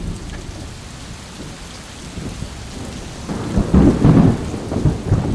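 Gale-force wind gusting at 45 to 70 knots, a steady rushing that swells about three seconds in into a loud, choppy low buffeting for around two seconds.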